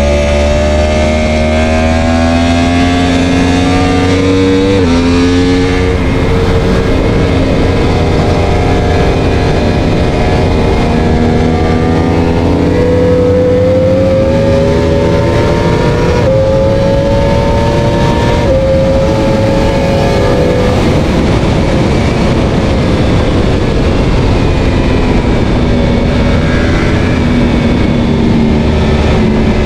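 On-board sound of a four-cylinder superbike lapping a race track: the engine climbs in pitch under hard acceleration, with several quick upshifts where the pitch drops suddenly. About two-thirds of the way through the engine note falls away as the rider shuts off, then it climbs again near the end, over constant wind rush.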